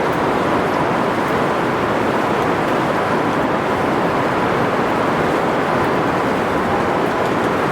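Heavy rain falling steadily in a thunderstorm: a dense, even hiss with no breaks.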